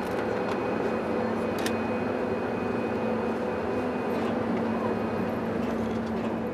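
A steady engine drone with a constant low hum and a faint high whine, with a few light clicks.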